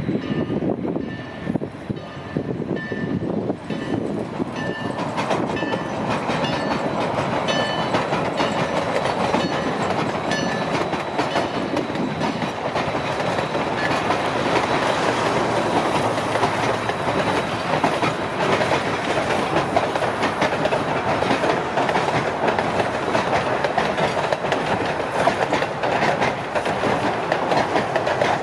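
Train passing close by, its wheels clattering over the rail joints, the rumble building about halfway through and staying loud. A short ding repeats steadily about every two-thirds of a second during the first half, then is lost under the train noise.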